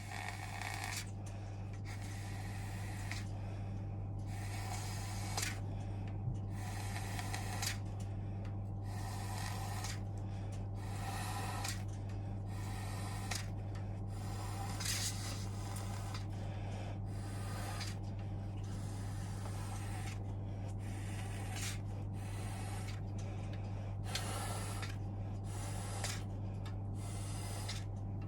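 Repeated scratchy scrubbing strokes, about one every second, from boiler parts being brushed clean. A steady low hum runs underneath.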